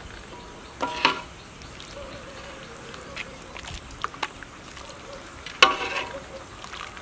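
Fish curry simmering in a large wok with a soft steady hiss, broken by two short sharp knocks that ring briefly, about a second in and again near the end.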